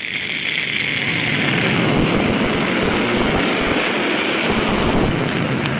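A man's vocal imitation of a jet airliner passing low overhead, made close into a handheld microphone. It is one long rushing noise: a hiss from the start, and a deeper rumble that swells about two seconds in and holds.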